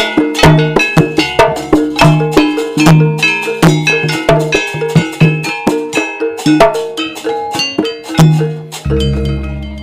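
Jaranan gamelan music with no singing: struck metal gongs and kettle-gongs ringing in a quick, steady rhythm, closed near the end by one deep gong stroke that rings on and fades.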